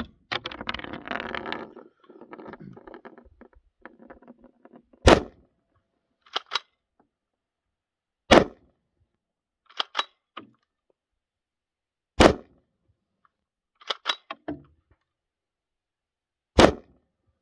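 Four shots from a Renegade Mark II straight-pull .223 rifle with a 12.5-inch barrel, fired one at a time about four seconds apart. Between shots the bolt handle is pulled back and pushed forward by hand, a pair of sharp metal clicks each time.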